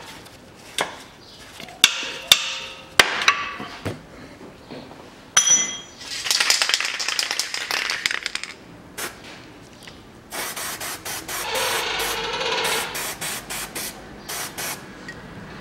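An aerosol can of lubricant sprayed in hissing bursts onto the suspension bolt, a longer spray about six seconds in and a run of shorter bursts after ten seconds. Before that come a few sharp metallic clinks of tools on the suspension.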